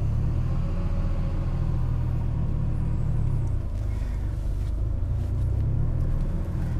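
Steady low engine rumble with a haze of higher noise and no distinct revving.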